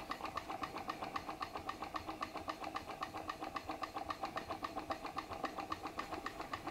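PM Research glass Stirling engine running under load, driving a Baker fan through a belt; its mechanism clicks in a fast, even rhythm of several beats a second.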